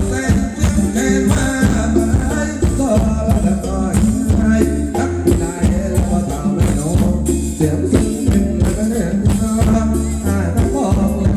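Thai luk thung song played loud by a band through a PA system, with a singer over a steady drum beat.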